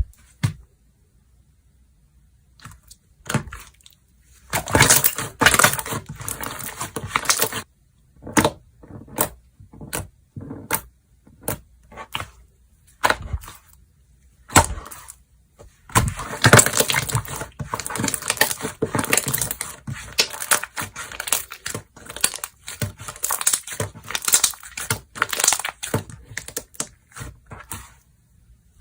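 Slime being squished and pressed by hand. Scattered single pops and clicks, with two long stretches of dense crackling and popping.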